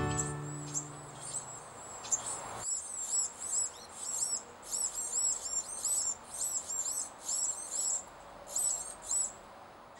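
Carolina wren nestlings begging for food: many thin, very high-pitched chirps in quick runs that grow denser as a parent comes to the nest, then stop shortly before the end.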